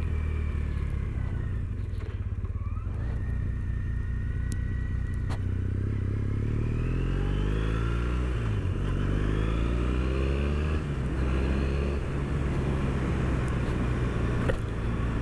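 Triumph Bonneville's parallel-twin engine under way. It accelerates from about five seconds in, rising in pitch, dips briefly at a gear change, rises again, then eases off to a steady cruise about eleven seconds in. A few sharp knocks are heard along the way.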